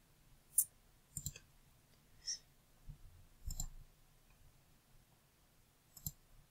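Computer mouse clicking several times at irregular intervals, single clicks and a quick double click.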